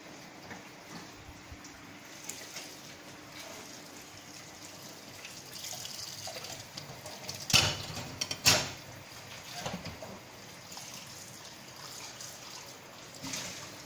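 Tap water running into a stainless steel sink as dishes are washed and rinsed by hand, with two sharp knocks of crockery about halfway through and another near the end.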